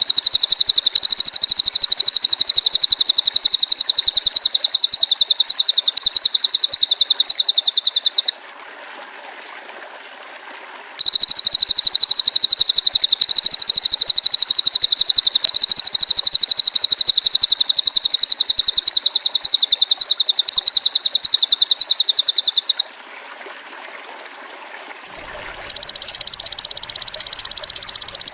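Recorded masteran calls of a cililin bird and a belalang emas (golden grasshopper): a loud, high, very rapid buzzing trill in two long bouts of about eight and twelve seconds with short pauses between. Near the end a different, steadier high trill starts.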